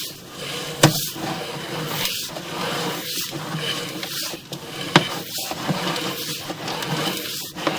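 Sewer inspection camera push rod being fed down a sewer line: a steady scraping rattle that eases off about once a second, with two sharp knocks, one about a second in and one about five seconds in.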